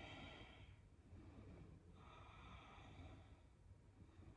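Faint, slow ujjayi yoga breathing: a soft, hissy breath fading out under a second in, then another long breath from about two seconds in.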